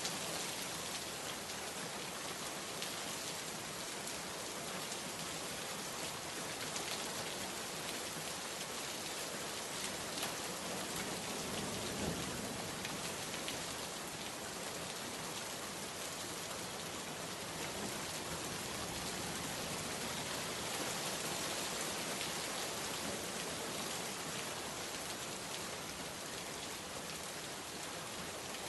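Steady rainstorm: heavy rain falling in an even hiss, with a few sharper individual drop hits standing out now and then.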